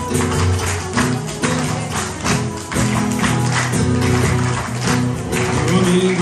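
Live acoustic instrumental introduction to a Brazilian folk song: plucked and strummed guitars over a steady, tambourine-like percussion beat, with a flute coming in near the end.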